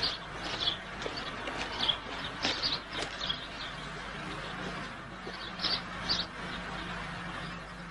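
Small birds chirping: short, high chirps every second or so, with a gap of about two seconds in the middle, over a faint steady low hum.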